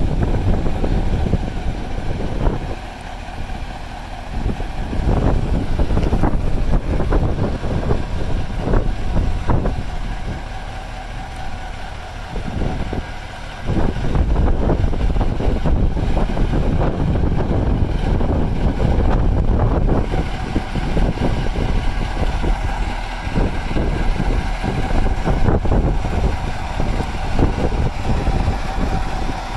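Cummins V903 V8 diesel of a Scammell Nubian Mk10E airfield fire tender running as the truck drives past and away, with wind buffeting the microphone in gusts.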